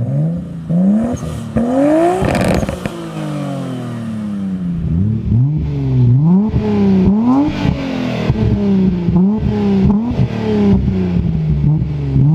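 Nissan Skyline R32 engine revved hard through its exhaust with a burst of crackling pops. It is followed by a Nissan Skyline R33 GT-R's twin-turbo straight-six being blipped repeatedly at standstill, about once a second, each rev rising and falling back with crackles on the overrun.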